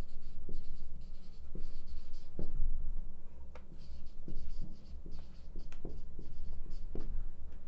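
Marker pen squeaking and scratching on a whiteboard as words are written out in short, uneven strokes, over a steady low hum.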